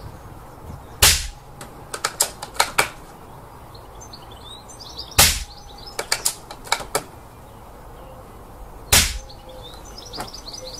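Three shots from an air rifle fitted with a BSA VC silencer, each a sharp crack, about four seconds apart. A quick run of lighter clicks follows each of the first two shots.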